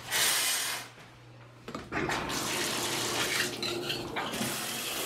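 Water running from a bathroom tap: a short gush, then a steady flow from just under two seconds in, over a faint low hum.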